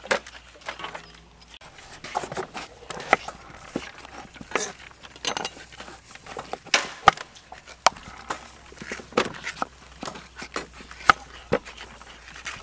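Kitchen knives peeling and seeding green papayas: irregular sharp clicks and scrapes of blades against the fruit and a wooden cutting board, roughly one or two a second.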